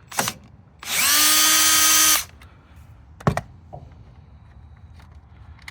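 Power drill with an 8 mm socket spins up and runs at a steady pitch for about a second and a half, backing out a bolt. There is a click before it, and a sharp click about a second after it stops.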